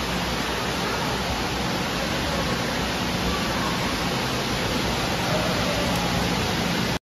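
Heavy rain pouring down in a steady hiss, cutting off suddenly near the end.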